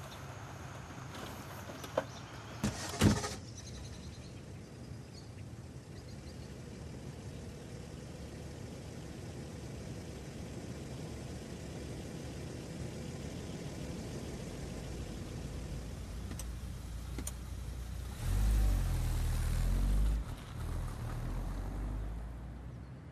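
A car door shuts with a loud slam about three seconds in. A car engine then runs low and steady, with a louder low rumble of a car going past near the end.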